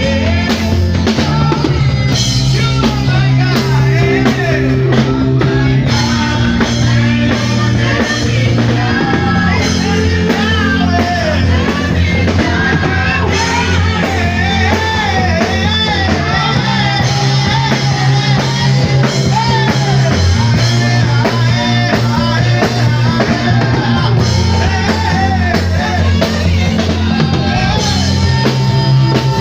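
Praise-and-worship band music: a saxophone plays a wavering lead melody over a drum kit and a bass line that moves between held notes.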